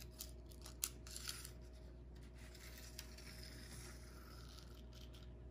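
Faint handling of a measuring tape along a diamond-painting canvas: a few light clicks, about one second in and again at three seconds, with a soft rustle between, over a low steady room hum.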